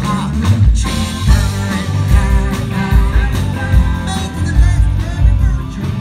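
Amplified live band playing rock: electric guitars, bass and a drum kit keeping a steady beat, with a singer's voice over them.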